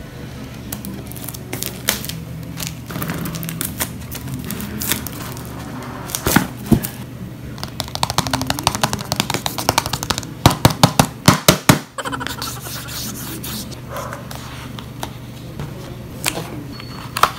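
Close-up handling of a Redmi 10 phone's cardboard box: a box cutter scraping through the seal, then the lid and paper sleeve rubbing and sliding off, with scattered scrapes and taps. Just past the middle comes a quick run of loud sharp clicks, the loudest part.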